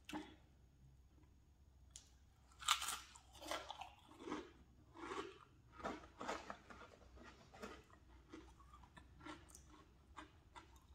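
Crunchy fried snack chips being bitten and chewed. A loud crunchy bite comes about two and a half seconds in, then chewing crunches follow at a steady pace, a little under a second apart, growing fainter.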